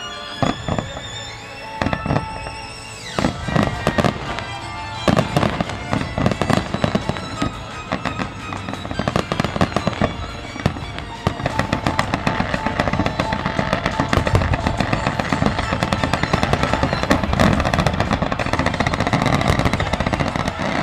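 Fireworks finale: aerial shells bursting in quick succession over music. The bursts start out separate and from about halfway through build into a dense, continuous crackling barrage.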